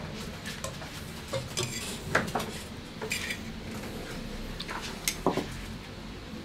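Scattered clinks and taps of metal tongs and cutlery against ceramic plates and a wooden cutting board as sliced grilled meat is dished out.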